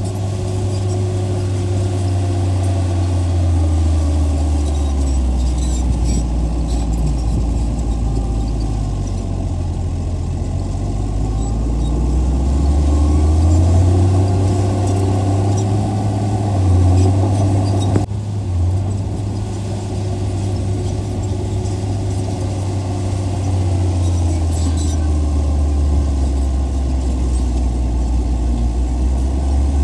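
Heavy diesel engine of earthmoving machinery running under load, its pitch rising and falling as the machine works. A sharp click comes about 18 seconds in.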